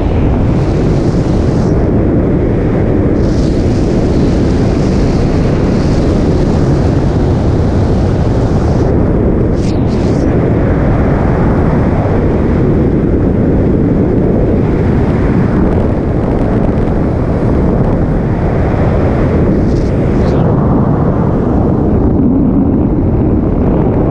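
Wind rushing over a camera microphone in wingsuit flight: a loud, steady buffeting noise, deepest in the low range. The higher hiss thins briefly about ten seconds in and again near the end.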